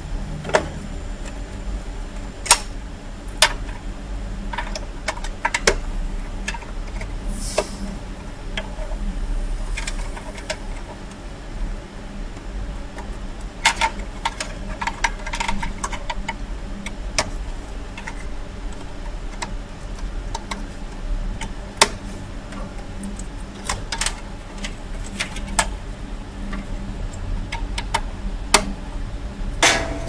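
Irregular small clicks and taps of plastic plug-in terminal blocks and cables being handled and fitted on an alarm panel's power supply, over a steady low hum.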